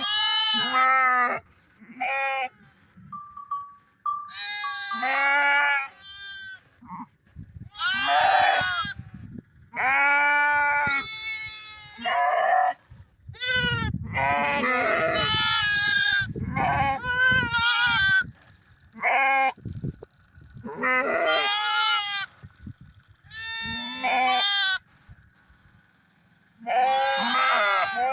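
Sheep bleating over and over, about a dozen wavering calls of about a second each, several overlapping in the middle as if more than one animal is calling.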